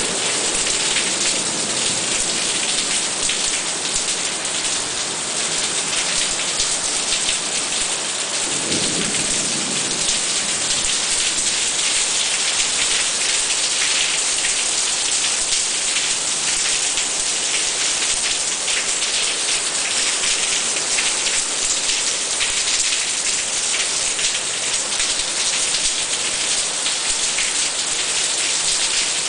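Heavy rain shower pouring steadily onto a tiled terrace and roofs, a dense, even hiss of falling water. About nine seconds in, a brief low rumble rises under it.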